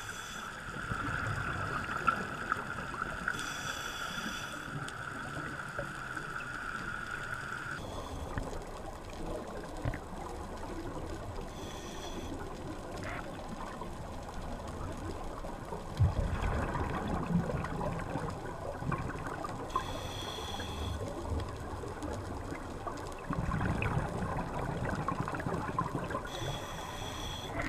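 Underwater sound of a scuba diver breathing through a regulator: a short hiss every eight seconds or so, with low rumbling bubbles between. A steady high whine cuts off about eight seconds in.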